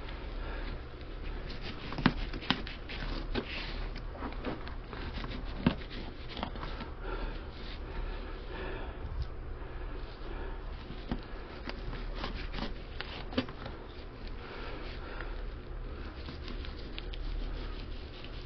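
Fillet knife working along a sheepshead: irregular scraping and sharp little clicks as the blade cuts through skin, scales and bone, over a steady low hum.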